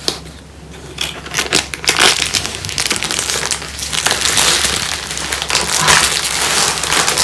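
Cardboard box being pried open by hand and its plastic-bagged contents pulled out: continuous crinkling and crunching of cardboard and plastic, starting about a second in.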